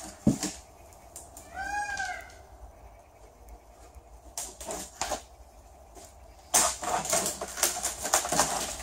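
Fibreglass mould being prised off its plug with a flat bar: a short squeak, several knocks, then a long run of cracking and tearing as the glass-fibre edge rips and the mould breaks free. The mould is stuck hard because no PVA release agent was used.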